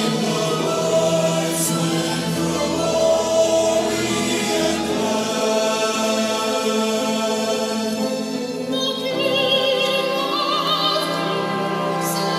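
Mixed choir of men and women singing held chords. About nine seconds in, a higher voice with wide vibrato comes in above the choir.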